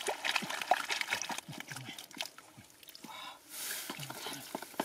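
Hands digging and scooping through thick wet mud and shallow water: a quick run of squelches, sucking pops and small splashes.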